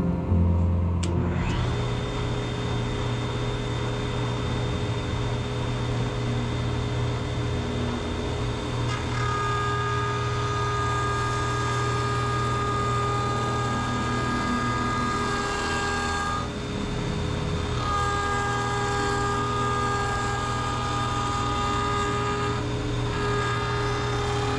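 A jointer starts up and runs steadily. A higher cutting tone comes and goes as an oak board is fed over the spinning cutterhead in passes, breaking off about two thirds of the way through and again shortly before the end.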